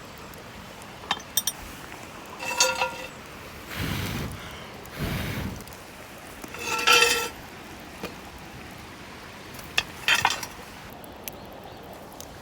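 Metal camp cookware clinking: a few light knocks, then ringing clinks about two and a half, seven and ten seconds in, with two short bursts of rustling between the first two. A steady stream rushes underneath.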